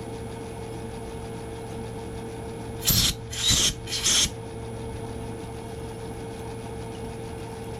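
Three short, harsh rasping scrapes in quick succession about three seconds in, over the steady hum of a running workshop machine motor.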